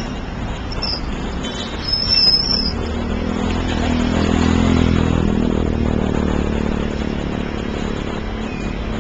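City street traffic: a steady rumble of motor vehicles, with one engine passing close, rising to its loudest about halfway and fading. Brief high-pitched squeaks sound about two seconds in.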